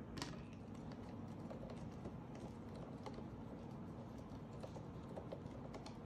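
Faint, scattered light clicks and taps of small hand tools and laptop parts being handled, over a steady low hum.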